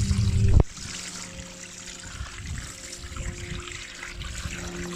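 A 3D-printed centrifugal water pump, driven by a drill motor, runs with water churning and splashing, then cuts out abruptly about half a second in, at the limit of what its power supply can deliver. After that, water trickles and drains quietly.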